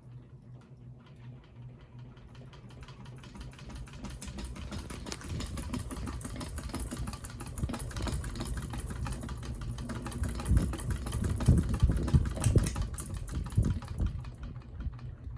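Ceiling fan running up to speed with a fast, even ticking rattle that grows louder, and heavier knocks from about ten seconds in; this is the fan noise being tested for.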